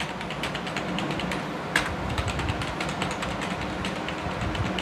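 Rapid typing on a computer keyboard: a quick, irregular run of keystroke clicks, one louder than the rest a little under two seconds in, over a steady low hum.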